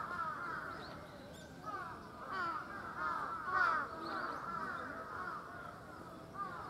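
Many birds calling at once, a dense chatter of short overlapping calls with a few louder swells.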